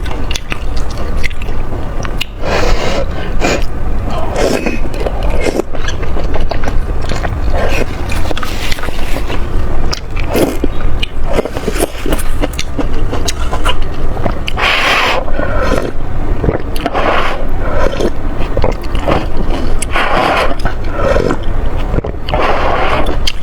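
Close-miked eating sounds: wet chewing and mouth noises, with a dense run of small clicks and a few louder bursts.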